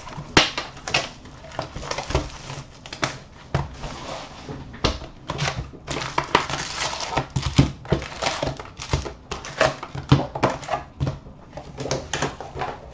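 Cardboard hockey card hobby box being opened and its foil packs taken out and set down in stacks: an irregular run of quick taps, knocks and rustles of cardboard and foil wrap.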